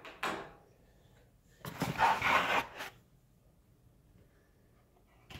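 Cardboard box and molded paper-pulp packaging insert being handled: a short rustle at the start, then a louder scraping rustle lasting about a second and a half near the middle.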